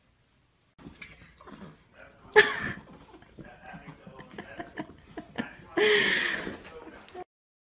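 A dog vocalizing, starting about a second in: a loud, short bark about two and a half seconds in and a longer, higher call near the end, with smaller sounds between.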